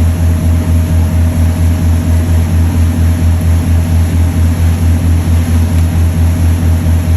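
Fishing charter boat's engine running steadily: a loud low hum that throbs about four to five times a second.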